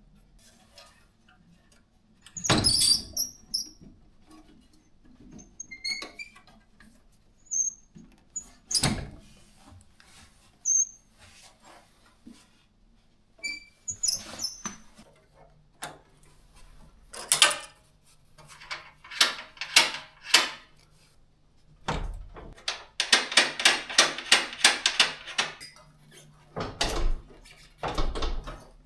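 Metal projector lens-mount brackets and plates being unbolted and handled by hand: scattered knocks and clunks, a few short high squeaks, and, about two-thirds of the way through, a rapid even run of clicks lasting a couple of seconds.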